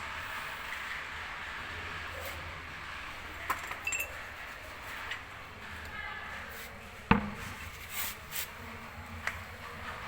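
Scattered light metallic clinks and knocks, with one sharp knock about seven seconds in, over a steady low hum.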